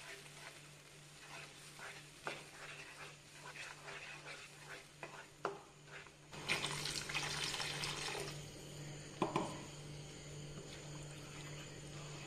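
Wooden spatula stirring and scraping a thick, wet pickle paste in a nonstick kadai, with small irregular scrapes and clicks. A little past the middle comes a louder wet, hissing stretch of about two seconds, then two quick knocks of the spatula against the pan.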